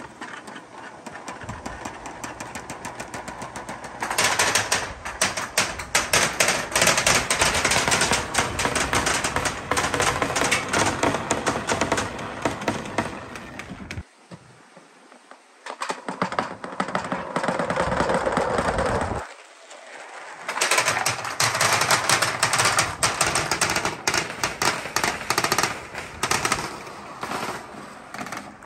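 Balls rolling down a marble run's clear plastic tubes, a dense rattling clatter of rapid knocks. It comes in three long runs, with two brief lulls partway through and a softer build-up at the start.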